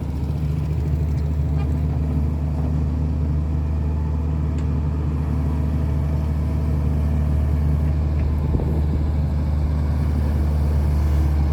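Diesel engine of a heavy earthmoving machine running steadily, a deep even hum that holds one pitch.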